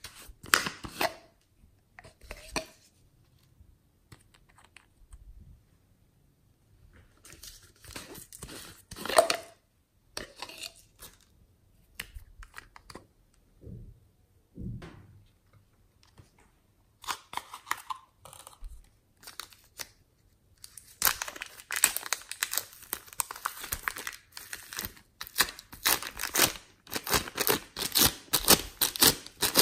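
Hands handling plastic slime supplies: short scattered crackles and clicks, then from about 21 seconds in a dense run of crinkling and tearing as a thin plastic zip bag of pink foam clay is opened.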